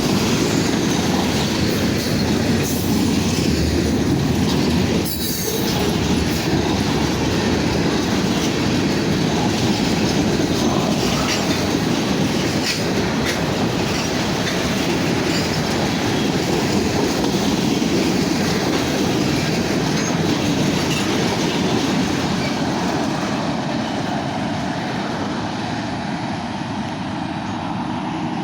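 Freight cars of a fast-moving Union Pacific manifest train rolling past, steel wheels clattering steadily over the rail joints. The sound eases slightly near the end.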